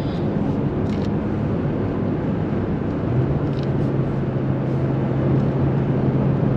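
Car cabin noise while driving: tyre and engine noise, with a steady low hum coming in about three seconds in.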